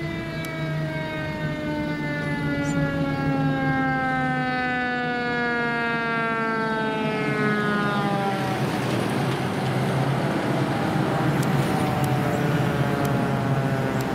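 Fire truck siren winding down in one long, slowly falling wail over a low engine rumble. From about nine seconds in the wail has faded, leaving the louder engine and road noise of the fire apparatus driving past.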